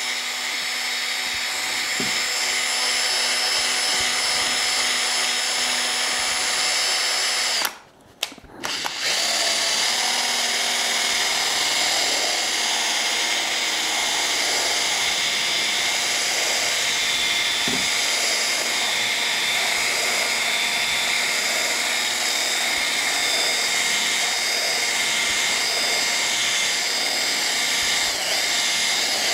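Cordless drill spinning a felt polishing wheel against a plexiglass sheet, buffing in acrylic polishing compound: a steady motor whine. The sound drops out briefly about eight seconds in, then runs on.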